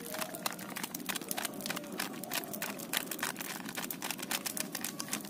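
Irregular small clicks and crackles, several a second, from hands squeezing and mixing chicken pieces in a wet spice marinade in a steel bowl while powder is shaken from a plastic spice packet over it.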